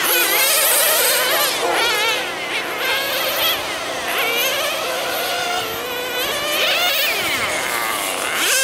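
Several nitro-powered radio-controlled sedan racing cars buzzing at high revs, their small glow-fuel two-stroke engines overlapping, each pitch rising and falling repeatedly as the cars speed up and slow down.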